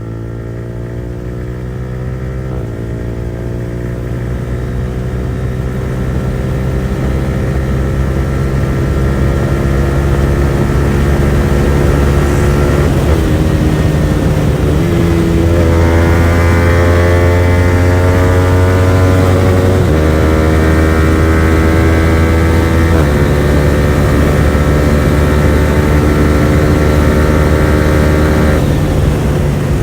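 Yamaha R15 V4's 155 cc single-cylinder engine running hard through a full-system titanium exhaust with no dB killer, the motorcycle under way on the road. The engine note climbs steadily and jumps in pitch several times as it changes gear, growing louder over the first several seconds.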